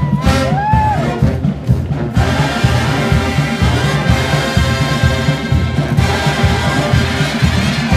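Marching band playing loudly, drums keeping a steady beat. Over the drums at first come a few sliding notes, then about two seconds in the full brass section comes in with sustained chords.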